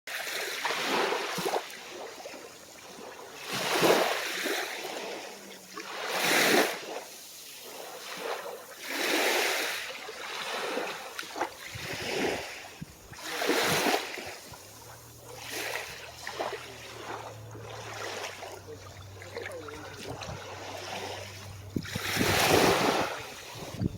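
Calm sea waves washing onto the shore, each wash swelling and fading every two to three seconds. A faint, low, steady hum runs underneath for several seconds in the middle.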